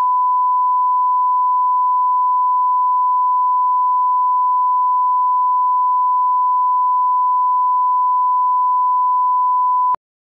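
Bars-and-tone reference tone: a steady, pure 1 kHz sine-wave test tone at constant level that accompanies colour bars at the head of an edited programme. It cuts off abruptly near the end.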